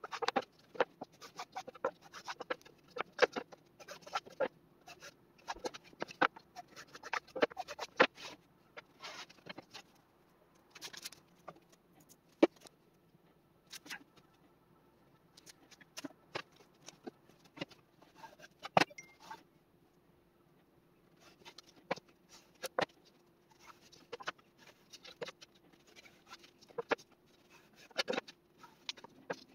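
Pine boards being handled and stacked on a workbench: irregular wooden knocks, taps and scrapes as boards are set down and slid against one another, thinning out for several seconds in the middle, over a faint steady hum.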